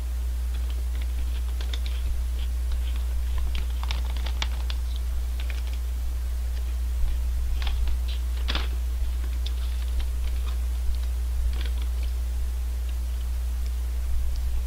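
Plastic snack bag crinkling and crackling in irregular bursts as it is handled, over a steady low electrical hum.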